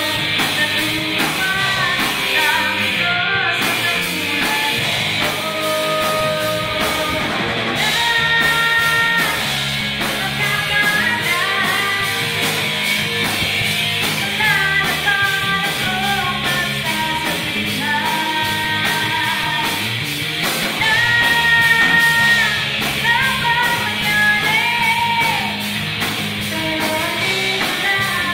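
Rock band playing live together: drum kit, electric bass and electric guitar through amplifiers, running through an alternative-rock song.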